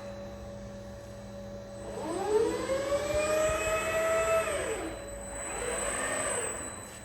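KUKA Quantec six-axis industrial robot's axis servo drives whining as the arm moves. The pitch rises as the arm speeds up, holds, then falls as it stops, about two seconds in. A second, shorter and fainter rise and fall comes near the end, over a steady electrical hum.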